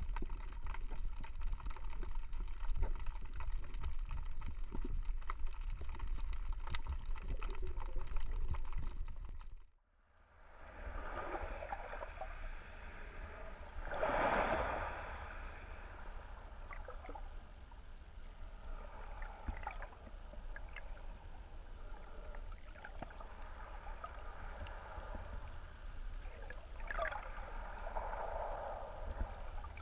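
Underwater sound picked up through a GoPro's waterproof housing: a deep muffled rumble with faint crackles. About ten seconds in it cuts out briefly, then gives way to swishing water surge in the shallows, which swells a few seconds later and again near the end.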